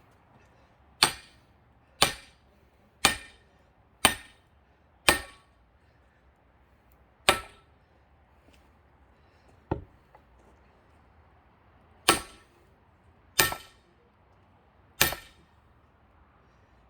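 Hammer striking the back of a steel axe head wedged in a thick pine log to split it, sharp metallic ringing blows. The first five come about one a second, then they slow, with a lighter tap near the middle and three more full blows.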